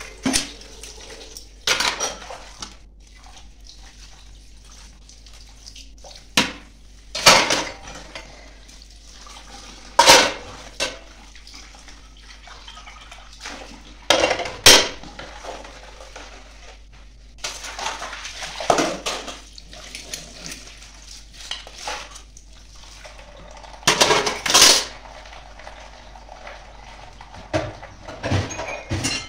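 Dishes being washed by hand at a sink: stainless steel bowls, a ladle, glasses and spoons clanking and clattering as they are set down on a steel tray. The loud clatters come every few seconds, with water from the tap running in between.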